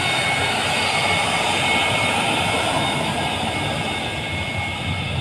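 Boeing 737-200's Pratt & Whitney JT8D turbofan engines running as the jet rolls past: a steady roar with two high whining tones over it, slowly fading toward the end as it moves away.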